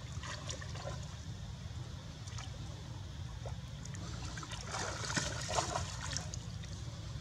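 Water splashing and trickling as macaques wade and play in a shallow stone channel, with a burst of splashing about five seconds in. A steady low rumble runs underneath.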